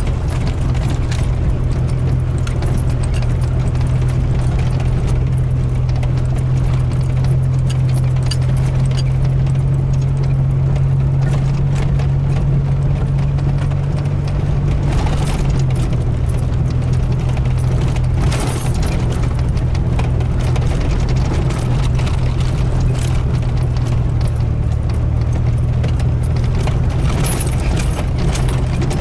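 Chevrolet S-10 Blazer engine running at low speed, heard inside the cab as a steady drone that drops slightly in pitch about halfway through. Tyres crunch over the rough gravel road, with frequent small rattles and clicks from the truck.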